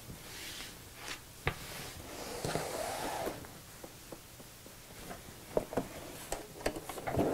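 Cotton fabric rustling as it is gathered and fed under a sewing machine's foot, with a few small clicks and taps from handling the machine and pins.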